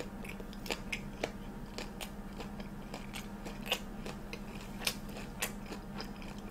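Close-miked chewing of a crispy, breaded deep-fried Korean hot dog: irregular crunches and wet mouth clicks, a few louder than the rest, over a faint low hum.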